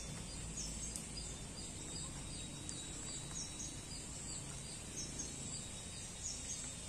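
Rural ambience: small birds chirping in short, high, downward notes again and again, over a steady high insect drone and a low rumble.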